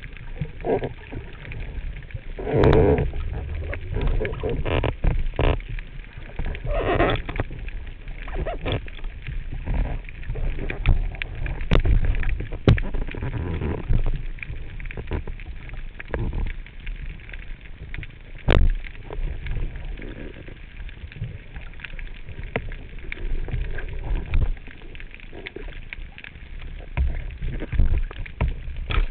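Underwater sound through a diver's camera housing: a steady low rumble of water with irregular knocks, and a few sharp clicks. About 3 and 7 seconds in come two short throaty grunts, the guttural calls a spearfisher makes underwater to draw a gilthead sea bream closer.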